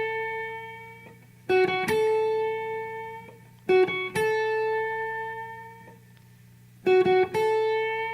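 Electric guitar playing a short blues lick three times: a couple of quick picked notes step up into a high held note at the 6th fret of the high E string, pushed slightly sharp with a one-finger bend. Each time the held note rings out and fades.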